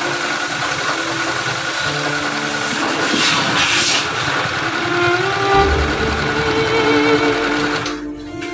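Pressure washer running and spraying water, heard over background music with held, stepping notes. The washer noise cuts off suddenly about eight seconds in, leaving only the music.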